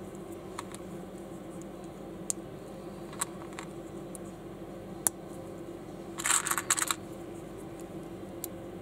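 Small plastic building bricks handled and pressed together by fingers: a few separate sharp clicks, then a quick rattling flurry of clicks about six seconds in. A steady low hum runs underneath.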